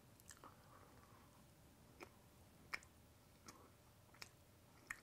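Near silence with faint chewing of a soft Jaffa Cake: a handful of quiet wet mouth clicks spread over a few seconds.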